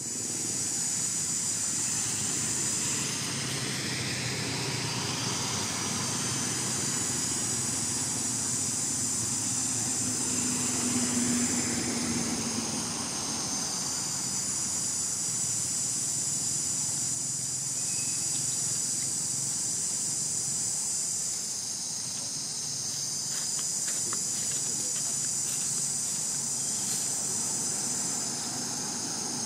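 A steady, high-pitched chorus of insects such as cicadas that swells and fades several times, over a faint low rumble.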